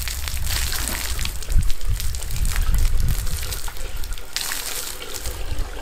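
Water gushing and splashing as it is poured from a bucket into a drum, filling it to prime a siphon pipe.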